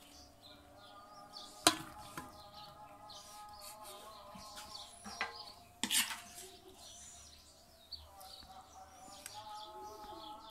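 Two sharp clinks of a utensil against a steel cooking pot, about two and six seconds in, as rice and chicken are layered into it. Faint steady tones run underneath.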